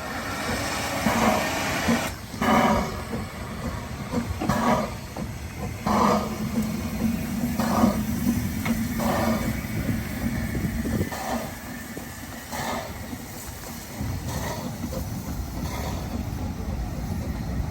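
Narrow-gauge steam locomotive working slowly, with separate exhaust chuffs about every one to two seconds over a steady hiss; the beats grow sparser later on.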